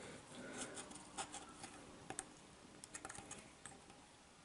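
Soldering iron working on a small LED driver circuit board during desoldering: faint, irregular small ticks and clicks.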